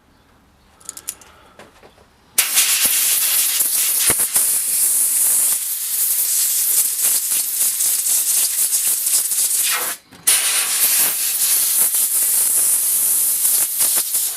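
Pressurised jet hissing steadily as chainsaw parts are blown or sprayed clean, starting abruptly a couple of seconds in and stopping for a moment about ten seconds in.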